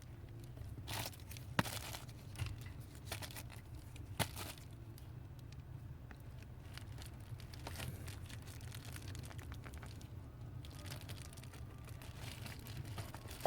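Handling of a plastic oxygen-sensor wiring connector being pushed together with pliers: a few sharp plastic clicks and scattered rustling and crinkling over a steady low hum.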